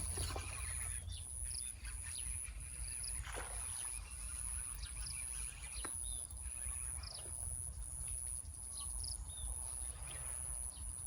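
Outdoor ambience: short high bird chirps repeating every second or so over a steady high-pitched pulsing drone, likely insects, and a low rumble.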